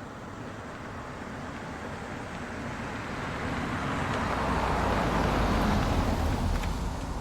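A road vehicle passing by: its engine and tyre noise swells to a peak about five to six seconds in, then fades.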